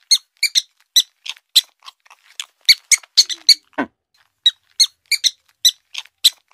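Lop-eared rabbit chewing a baby carrot: a quick run of short, crisp crunches, about three a second, with a brief pause a little after four seconds in.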